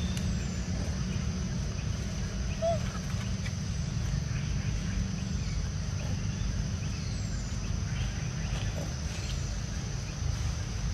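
Outdoor natural ambience: a steady low rumble with a steady high insect drone over it. A few faint falling chirps and one short call about three seconds in stand out.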